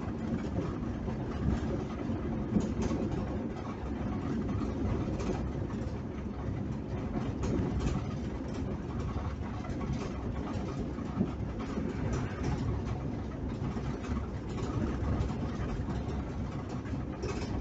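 Steady engine and road noise inside the cab of a 20-seat Fiat passenger van driving along a paved highway.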